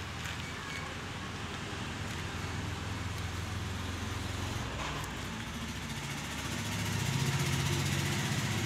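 An engine running steadily with a low hum. About seven seconds in it grows louder and rises slightly in pitch.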